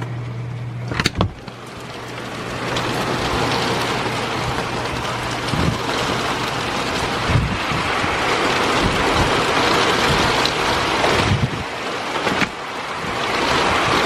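Derecho wind gusting hard with driving rain, buffeting the microphone in irregular thumps; the rush builds over the first few seconds. A sharp knock comes about a second in, and a steady low hum stops about five seconds in.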